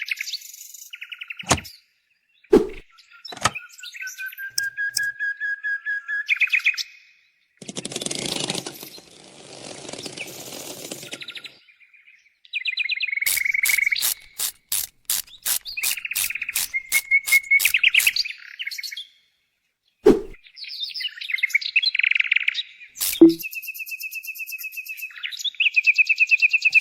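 Small birds chirping and tweeting in short bursts and rapid trills, broken by abrupt silences and a few sharp clicks, with a stretch of hissing noise near the first third.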